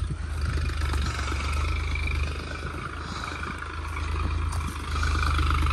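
Tractor engine running as it pulls a tine cultivator through the field, the sound dipping and then swelling again near the end.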